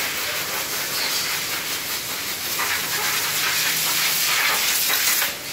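A steady hiss, loudest in the high frequencies, that cuts off suddenly near the end.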